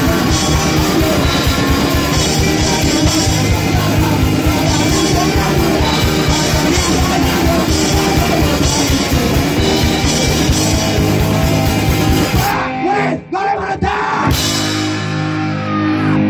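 Punk rock song: loud full band with drums, electric guitar and yelled singing. About twelve and a half seconds in the band breaks off, and after a short gap a guitar chord rings on its own near the end.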